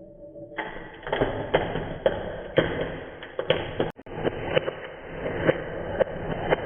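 Balls rolling down a wooden marble-run track with a steady rumble, clacking against the wood in irregular sharp knocks about once or twice a second.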